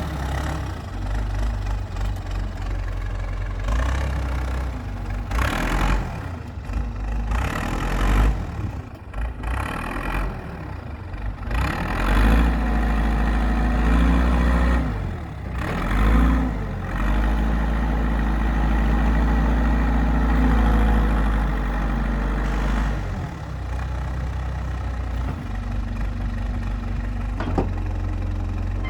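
JCB backhoe's diesel engine running, its revs rising and falling, with a louder, steadier stretch in the middle while the machine is worked.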